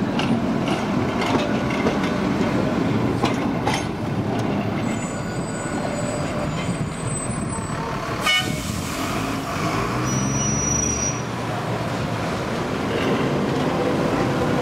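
Heritage electric trams running on street track: clicks from the wheels over the rail joints in the first few seconds, over steady traffic noise. A short toot sounds about eight seconds in, and a low hum follows.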